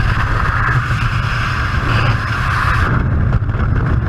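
Steady, loud rushing roar of wind across a camera microphone falling through the air.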